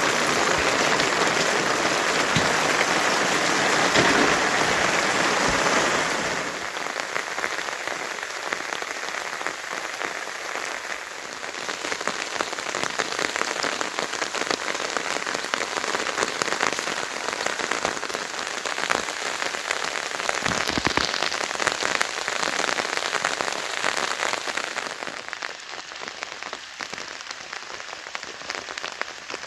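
Heavy rain falling, a steady hiss of many pattering drops. The rain is louder at first and drops abruptly to a lighter level about six seconds in.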